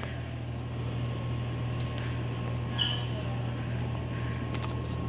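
Dixie Narco BevMax DN5800 drink vending machine running: a steady low hum with a faint, thin, steady high tone. A few light clicks and a short chirp come about three seconds in.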